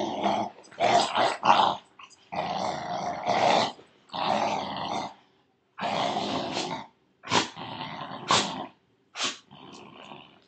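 Dogs play-growling during tug-of-war over a bicycle tire, in repeated bouts of about a second each. Near the end come a few short, sharp growls.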